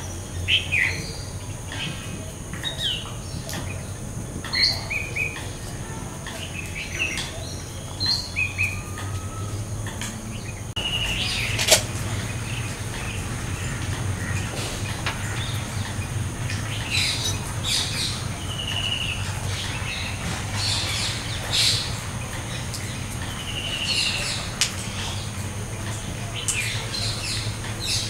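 Assorted wild birds calling: many short, high chirps and whistled notes scattered throughout, over a steady low hum.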